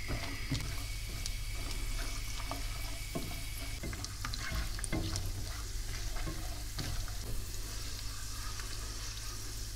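Blanched almonds and pine nuts frying gently in hot oil in a non-stick pan, a steady sizzle, stirred with a silicone spatula that gives scattered light scrapes and clicks.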